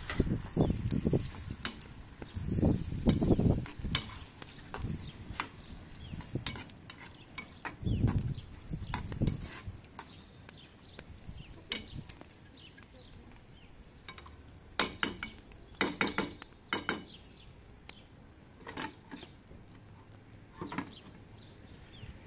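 Metal cooking clatter: a spoon stirring and knocking in a pot, with clinks of lids, plates and a metal tray, and a run of sharp clatters about fifteen seconds in. Bursts of low rumble come and go in the first half.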